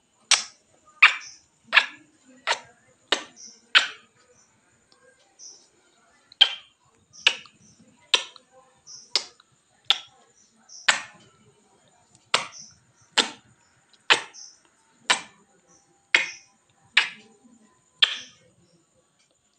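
Lips smacking in repeated kisses against a mirror's glass, a sharp smack about once a second, about twenty in all, with one break of about two seconds a few seconds in.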